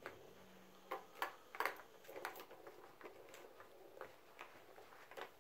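Plastic ball-track tower cat toy clicking and rattling as a kitten bats at it and the ball rolls in the track: a run of irregular light clicks and taps, busiest in the first two and a half seconds.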